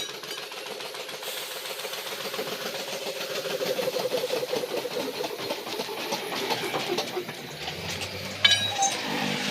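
An engine or motor running with a fast, even chug, growing louder over the first few seconds and then easing off. A sharp knock comes near the end.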